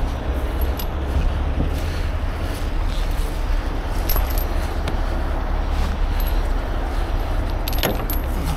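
Heavy diesel engine running steadily, with light metallic clinks and jingling of rigging hardware, most of them near the end.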